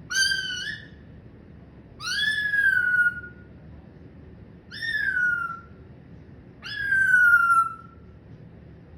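Pet parrot giving four drawn-out calls about two seconds apart, each sliding down in pitch, the later ones a little longer.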